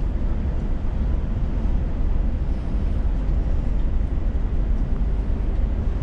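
Steady low engine and road rumble heard inside the cab of a Scania S500 truck driving on a snowy highway.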